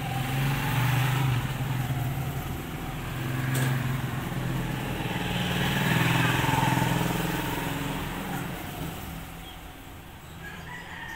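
A motor vehicle engine running nearby, swelling and easing in loudness several times and fading near the end. One brief sharp click about a third of the way in.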